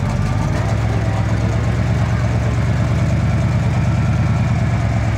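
Off-road trial car's engine running steadily at low revs, with no revving, while the car crawls tilted across a steep rocky slope.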